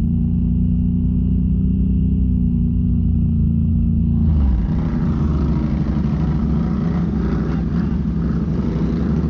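Off-road vehicle's engine running hard at a steady pitch. About four seconds in, a loud coarse rushing noise joins it and the engine note turns rougher, as the vehicle drives into the terrain.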